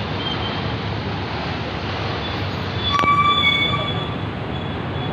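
City street traffic: a steady rumble of engines and tyres from cars, motorcycles and buses. About three seconds in comes a sharp click and then a short, high-pitched tone lasting under a second.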